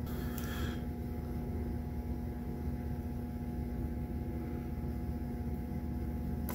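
Steady low hum with a few faint steady tones running underneath, with a brief faint scratch about half a second in.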